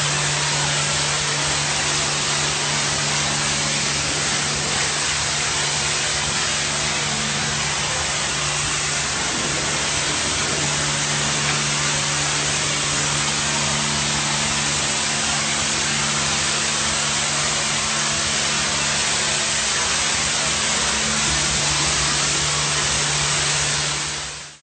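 DOFF superheated-steam cleaning lance spraying, a loud steady hiss of steam jetting from the nozzle. Under it runs a low steady hum from the unit, which drops out briefly twice.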